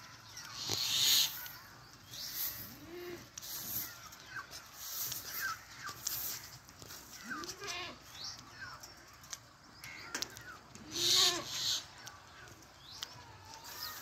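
Rose-ringed parakeet talking: a string of short, rising-and-falling mimicked sounds with hissy high-pitched parts, the loudest about a second in and around eleven seconds.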